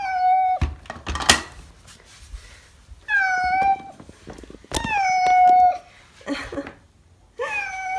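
A cat meowing four times from inside a plastic pet carrier, long drawn-out cries of a timid cat upset at being shut in. Two sharp knocks sound shortly after the first cry.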